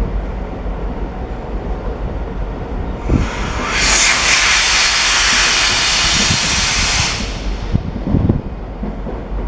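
SNCB AM08 (Siemens Desiro ML) electric multiple unit passing slowly over station tracks. About three and a half seconds in, a loud hiss of escaping compressed air rises, holds for some three seconds and fades out, over a low steady rumble.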